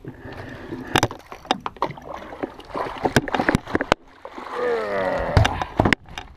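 A redfish being scooped up in a landing net and lifted aboard a fibreglass boat: water splashing and a series of sharp knocks and clatter as the net and its pole hit the hull. A short squeaky sound bending in pitch comes a little past the middle.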